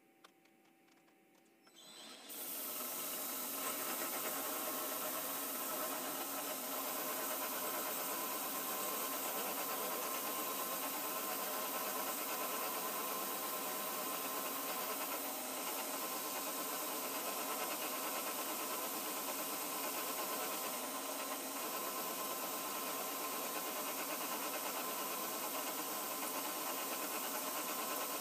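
Vertical milling machine with an end mill cutting a metal workpiece held in a vise. The cut starts suddenly about two seconds in and then runs steadily with a hiss.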